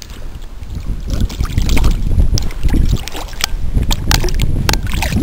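Hooked chub splashing and thrashing at the water's surface as it is drawn in by hand: a run of sharp splashes from about two seconds in, over a steady low rumble of wind on the microphone.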